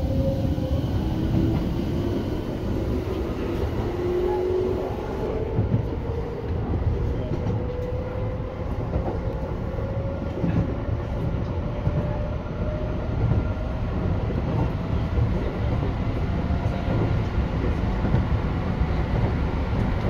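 Keio 8000 series train running, heard from inside the car: the Hitachi GTO-thyristor VVVF inverter and traction motors whine in several tones that rise slowly in pitch as the train gathers speed, over a steady rumble of wheels on rail.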